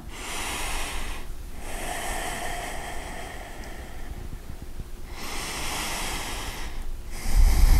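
A man breathing deeply and audibly through the nose while holding a yoga pose: three long breaths with pauses between them. A low rumble comes in near the end.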